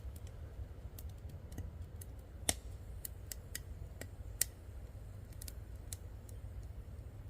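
Faint, irregular small clicks and ticks, a dozen or so, two of them sharper about two and a half and four and a half seconds in, over a low steady rumble.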